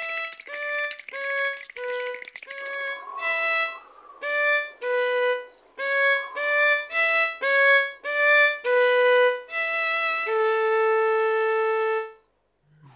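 Solo violin playing a tune of short, separate bowed notes, ending on one long held note of about two seconds.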